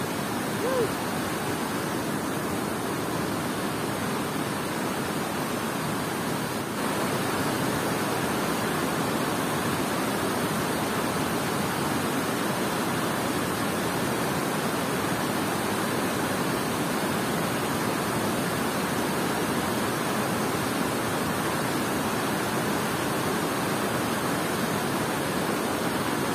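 Water pouring over a dam spillway in a strong current and churning in the river below: a steady, unbroken rush.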